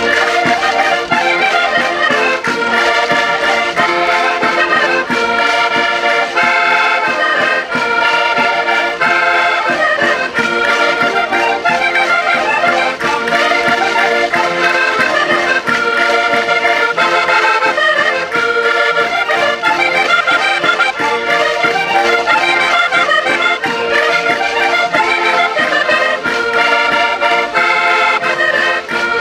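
Several concertinas playing a lively chula, a Portuguese folk dance tune, with quick chords and melody running steadily without a break.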